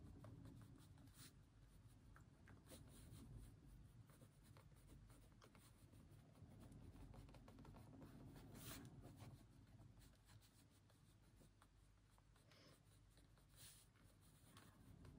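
Faint, intermittent scratching of a pen writing on paper, with a few louder strokes.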